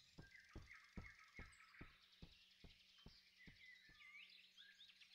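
Quiet forest ambience of faint bird chirps, with a run of soft, evenly spaced taps, about two and a half a second, that fade out after about four seconds.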